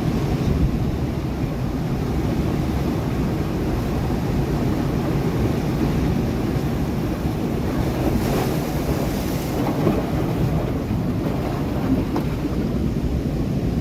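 Sea waves breaking against rocks: a steady low rumbling wash of surf, with a brief brighter hiss of spray about eight seconds in.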